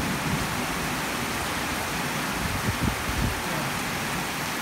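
Torrential rain pouring down onto a flooded paved road, a steady, dense hiss.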